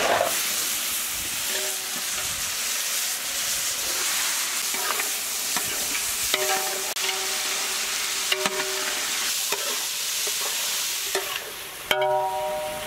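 Marinated mutton sizzling as it fries in hot ghee in a large metal pot, stirred with a flat metal spatula that scrapes against the pot now and then. The sizzling drops away near the end.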